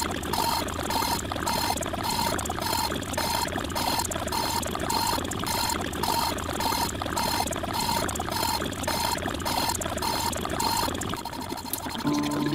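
A dense jumble of many overlapping looped sound clips, a water-like rushing hiss with a short beep repeating about twice a second. About eleven seconds in the beeps stop and steady held tones come in.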